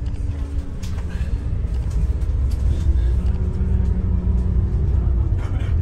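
Double-decker bus on the move, a steady low engine and road rumble; an engine tone comes in about halfway through.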